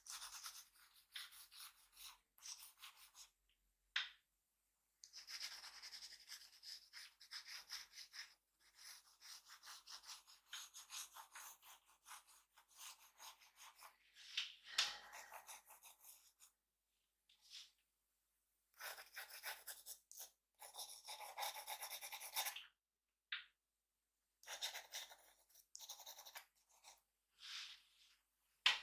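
A drawing tool scratching and rubbing across paper in runs of quick, fine strokes, as in shading or hatching, with short pauses where it is lifted and a few single sharp taps.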